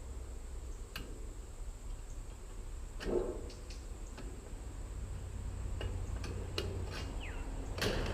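Scattered light clicks and taps of sheet-metal trim being handled and worked, with a louder metallic clack about three seconds in and another near the end, over a steady low hum.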